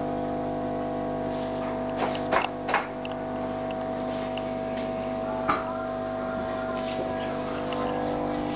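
Steady electric hum of an aquarium pump, several even tones held without change, with three sharp clicks about two to three seconds in and one more about halfway through.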